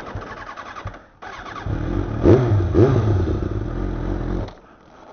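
Kawasaki ZZR600 inline-four engine firing up about a second in, then blipped twice in quick succession, loud through a Yoshimura RS-3 exhaust with its silencer baffle removed. It runs on steadily, then cuts out near the end.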